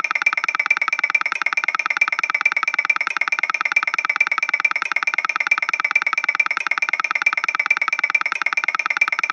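Japanese railroad crossing alarm ringing its electronic "kan-kan" bell in rapid, even strokes, a high metallic ding repeated steadily without a break.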